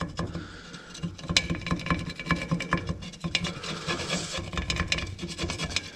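Hand scraper scraping in quick repeated strokes along a chrome moped wheel rim, lifting black paint softened by paint remover.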